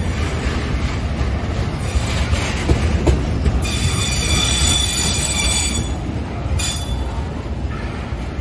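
Freight train of rail tank wagons rolling past, a steady low rumble of steel wheels on the rails. A high wheel squeal rises about three and a half seconds in, lasts a couple of seconds, and returns briefly near the end, with a couple of clicks of wheels over the rail just before it.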